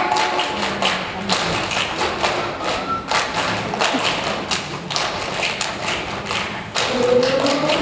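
A choir's body percussion: many people clapping their hands and patting their bodies together in a steady rhythm, with no singing. Voices come back in near the end.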